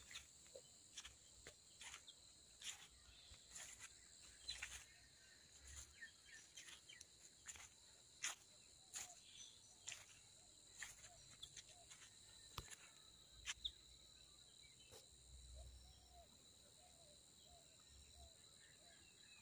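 Faint steady chorus of field insects such as crickets, a high-pitched even trill, with scattered short clicks and chirps.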